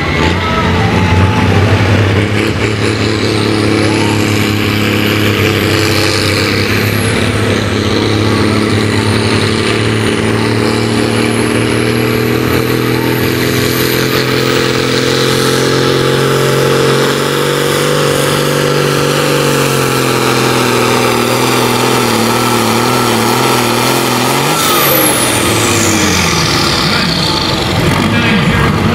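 Case 970 pulling tractor's diesel engine running hard under full load while pulling a weight-transfer sled, with a high whistle rising and falling over it. About 25 seconds in the engine drops in pitch and the whistle falls away steeply as the throttle comes off at the end of the pull.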